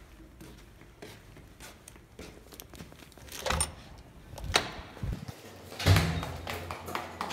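Soft footsteps on carpet, then the metal push bar of a heavy stairwell door clunking as it is pressed and the door opening. Loud knocks come about three and a half and four and a half seconds in, and a heavier bang about six seconds in.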